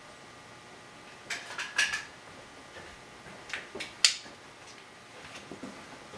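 A few clinks and clicks of hard objects being handled: a short clatter about a second in, another around four seconds ending in one sharp click, and fainter taps near the end.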